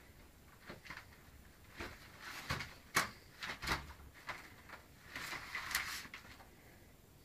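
Mail coming through a door's letter slot: the slot flap clacks several times, sharpest about three seconds in, and paper rustles as the letters fall to the floor near the end.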